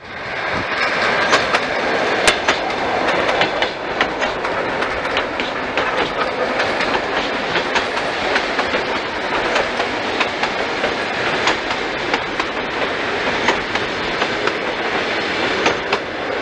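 A train running on rails: a steady rushing rumble with frequent sharp clicks of the wheels over rail joints.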